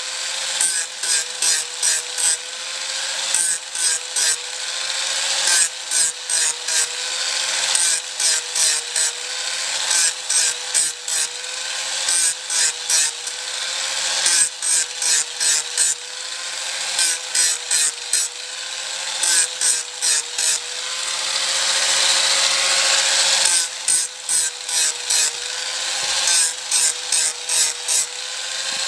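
Electric angle grinder with an abrasive disc grinding the braking surface of a bicycle rim. A steady motor whine runs under a harsh grinding hiss, broken into runs of quick rasping strokes about four a second, with one longer unbroken pass about two-thirds of the way through.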